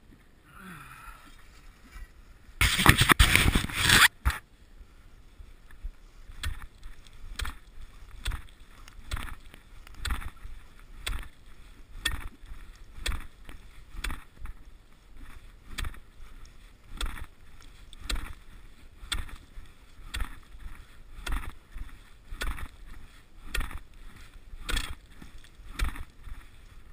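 Steel-tipped ice chisel (spud bar) striking lake ice over and over, about one blow a second, chipping a test hole to check the ice. A loud burst of noise comes about three seconds in, before the blows start.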